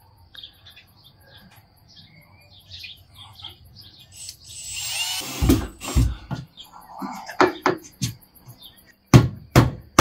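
Cordless drill driving a screw into the wooden eave board, whirring with a rising whine for about a second, followed by several sharp knocks in the second half.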